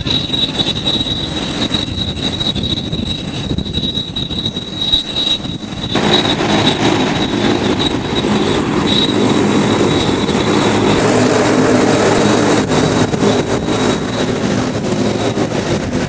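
Jet aircraft on the airport apron: a steady high-pitched whine over a low rumble. About six seconds in the sound changes suddenly to a louder, fuller rush, and the whine fades out later on.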